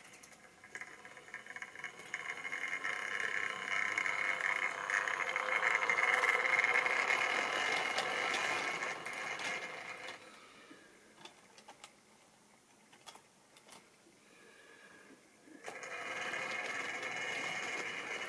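Model railway locomotive's electric motor whining and its wheels clicking along the track as the train runs. The sound builds to its loudest near the middle as it passes close by, falls away, then picks up again steadily near the end.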